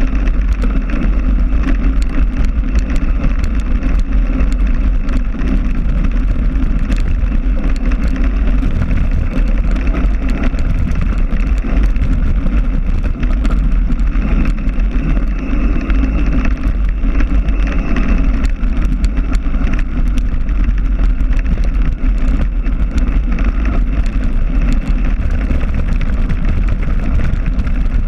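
Steady loud wind rumble on the microphone, with frequent small clicks and rattles throughout.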